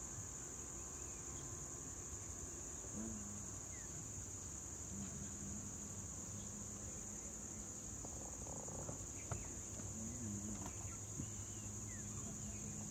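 Steady, high-pitched insect drone of crickets or cicadas, with a faint low hum beneath.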